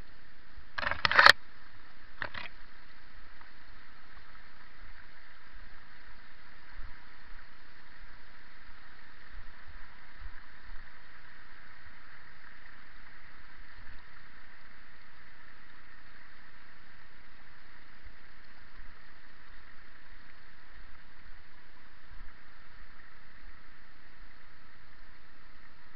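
Steady rushing of a mountain stream, with two short loud knocks about one and two seconds in and faint low thumps scattered throughout.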